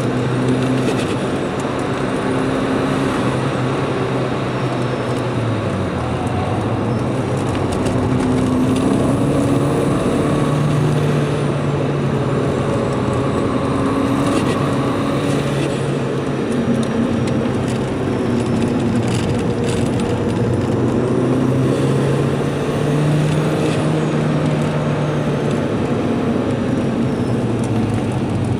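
Holset-turbocharged Volvo S40 T4 four-cylinder engine heard from inside the cabin under hard driving, its pitch climbing and dropping several times as the driver accelerates, shifts and lifts for corners, over steady road and tyre noise.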